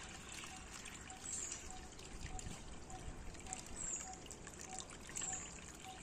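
Water poured from a plastic jug through a funnel into a car's radiator: a faint, steady trickle as the radiator is filled.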